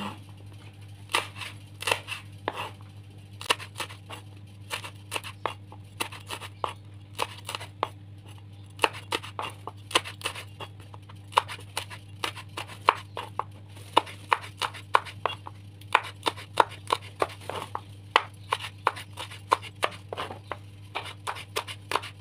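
Knife slicing chilies on a cutting board: a long run of sharp, irregular taps, a few a second with short pauses, over a steady low hum.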